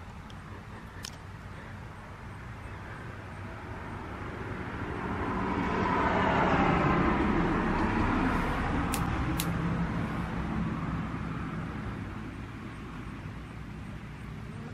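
A vehicle passing by. Its engine and tyre noise swells over several seconds, is loudest about six to eight seconds in, then fades away.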